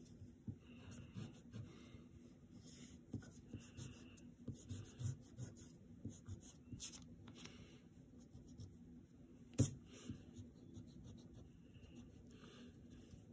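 Eraser rubbing pencil lines off paper in short, faint scrubbing strokes, with one sharp tap about ten seconds in.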